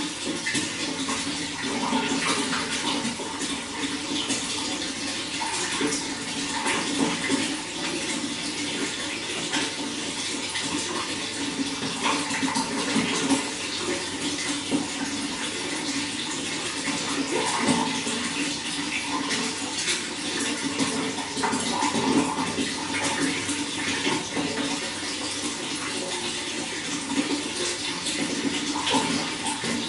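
Running water flowing steadily, a continuous splashing rush with constant small gurgles and spatters.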